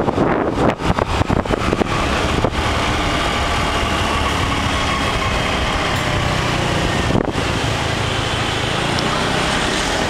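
Scooter engine running while the scooter is ridden, with wind buffeting the microphone and a few clicks in the first two seconds. A sharp knock comes about two and a half seconds in, then a steady engine hum with road and wind noise.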